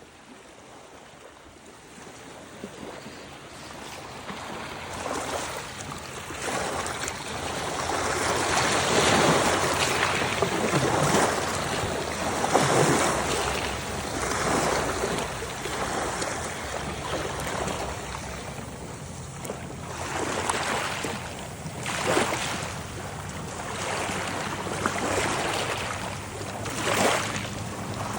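Waves washing in on a shore, swelling and falling in repeated surges, with wind buffeting the microphone. The sound builds up over the first several seconds.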